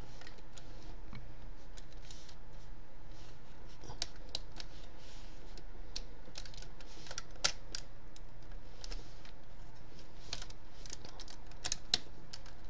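Scattered small clicks and taps of a Masterpiece MP-10 Optimus Prime transforming toy's parts being pushed and fitted into place by hand, with a sharper click about seven and a half seconds in and a couple more near the end.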